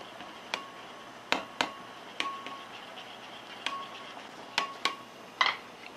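A metal spoon stirring gochujang sauce in a ceramic bowl, striking the bowl in about eight light, irregularly spaced clinks, some with a short ring. A faint steady hiss lies underneath.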